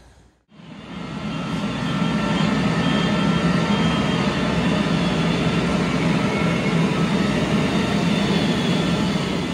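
A steady mechanical drone, with a strong low hum and several faint steady whines above it. It fades in after a brief gap at the start.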